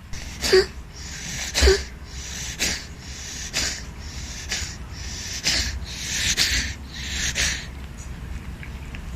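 A pet's repeated wheezing, hacking breaths, about one a second, eight in a row with the first two loudest, then stopping. It is a suspected coughing or asthma-like fit.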